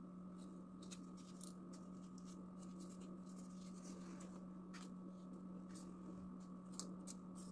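Faint rustling and light clicks of paper strips being handled and cut for small rolled paper roses, over a steady low hum.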